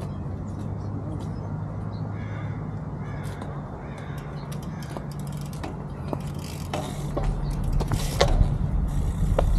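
Outdoor ambience with a steady low hum and a few caw-like bird calls. From about seven seconds in, wind rumbles on the bike-mounted microphone as the bike gets moving, with sharp clicks and knocks.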